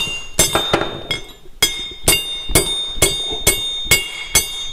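Hammer blows driving a steel roll pin back into a quick-hitch latch casting to hold the latch. About ten sharp metal-on-metal strikes come about two a second, each ringing briefly, with one short pause after the first second.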